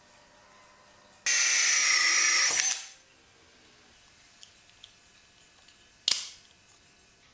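A power drill runs in one burst of about a second and a half, a high whine that starts and stops abruptly. About six seconds in comes a single sharp click.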